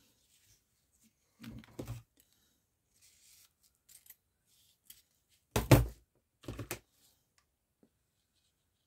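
Scissors cutting through fabric ribbon: a few separate snips with faint rustling between them, the loudest a little past the middle.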